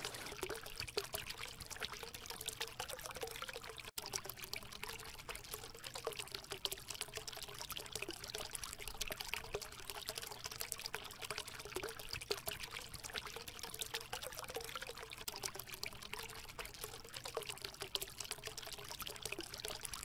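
Spray from an Aisitin floating solar fountain pump falling back onto a garden pond's surface: a steady splashing patter of droplets, with a faint steady hum underneath.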